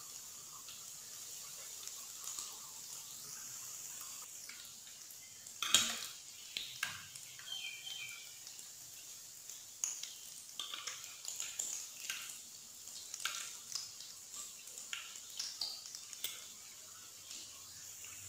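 Breaded potato kababs sizzling in hot oil in a frying pan, with a steady faint hiss. From about six seconds in, steel tongs click and clack against the pan and the kababs as they are turned over.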